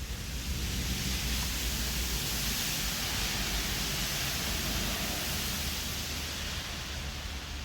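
Steady rushing noise with no tone in it, swelling about a second in and easing off near the end.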